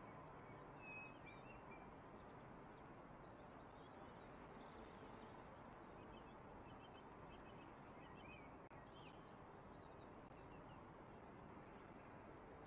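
Near silence: a faint steady hum of the distant city, with a few faint, scattered bird chirps.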